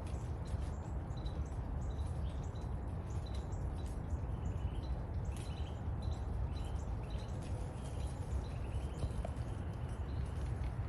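Dry leaves ticking and rustling as they fall and land, over a steady low wind rumble, while a small bird chirps repeatedly about twice a second.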